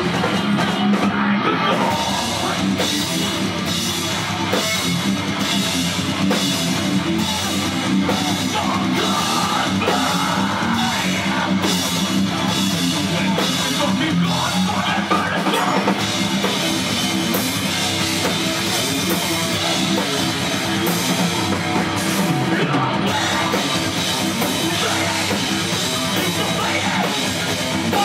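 Live rock band playing loud: electric guitar over a drum kit with a steady, driving beat.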